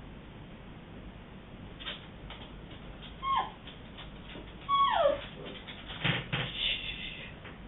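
A sleeping dog whimpering twice, short whines that fall in pitch, followed by a cluster of soft clicks and rustles about six seconds in.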